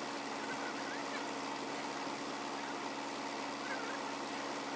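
Crane truck's engine idling steadily with a constant hum. A few faint bird chirps come through about a second in and again near four seconds.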